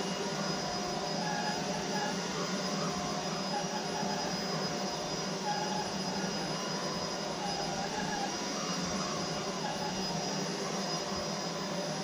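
Roidmi F8 Storm cordless stick vacuum running steadily as its soft roller brush head is pushed over a low-pile rug, picking up scattered dirt. A steady high motor whine sits over the rush of air.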